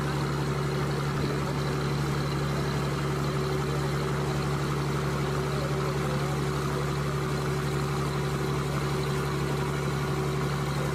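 Tour boat's engine running steadily, a constant low hum with a few steady tones above it.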